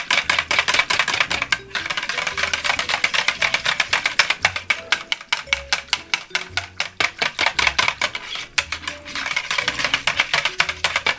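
Wire whisk beating a thin, milky punch mixture in a plastic measuring jug, the wires clicking rapidly against the sides of the jug, with a couple of short pauses.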